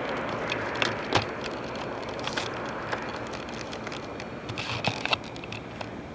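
Distant airplane noise fading slowly, with scattered sharp clicks and crackles as the camcorder is handled and swung down.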